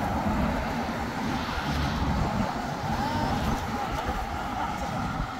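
Wind rumbling and buffeting on a phone microphone.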